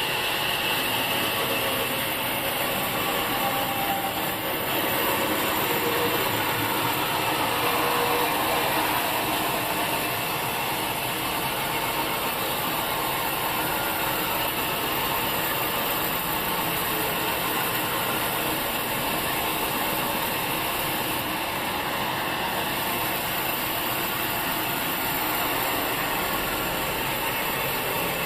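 Sawmill machinery running with a steady, even mechanical noise.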